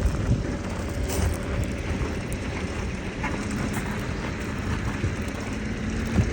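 Construction vehicle engine running, a steady low rumble with scattered knocks and a faint steady hum in the later seconds.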